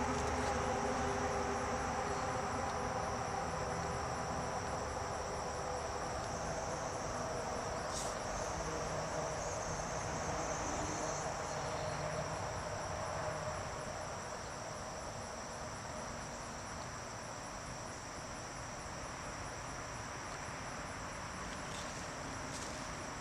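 Crickets chirping steadily in the background, over a faint steady hum that eases off about halfway through.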